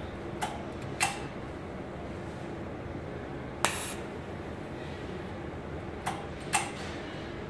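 Capacitor-discharge welding machine firing repeatedly under a stress test: five sharp snaps at uneven gaps, three of them louder, over a steady electrical hum.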